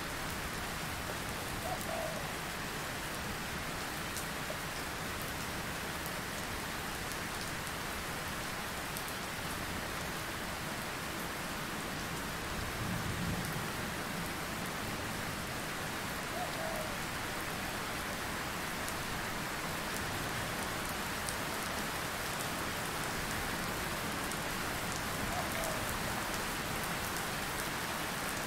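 Steady rain falling, a nature-sound track, with a brief low rumble about halfway through.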